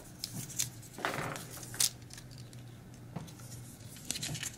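Hands handling a 16mm film spool over the open film chamber of a Bolex H-16 Reflex camera: a few small sharp clicks, with a brief rustle about a second in.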